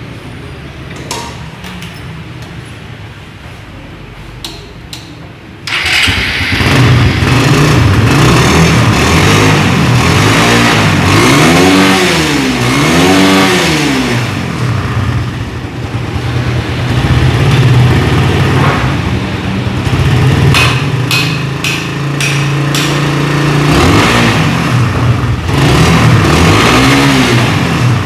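Suzuki Raider 150's single-cylinder four-stroke engine running after a carburettor tune-up. It runs steadily, becomes suddenly much louder about six seconds in, then the throttle is blipped so the revs rise and fall twice, and again near the end.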